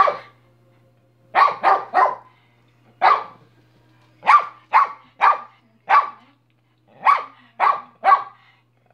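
Small tan dog barking repeatedly: about a dozen short, sharp barks in quick groups of two or three, with brief pauses between the groups.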